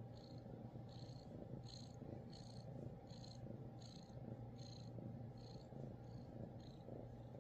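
Domestic cat purring steadily while being stroked, a low continuous rumble. A faint high-pitched pulse repeats over it roughly every three-quarters of a second.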